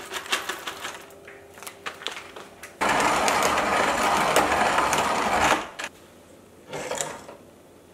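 Coffee beans clattering into an antique coffee bean grinder, then about three seconds of loud, steady grinding that starts and stops suddenly.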